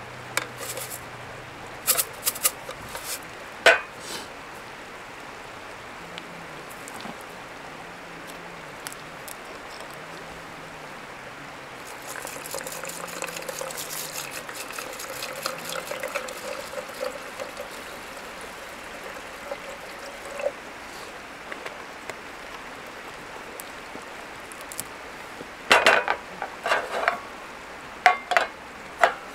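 Water poured from a plastic bottle into a metal mess tin for about eight seconds, with sharp metal clinks of the tin and its lid being handled before and after the pour.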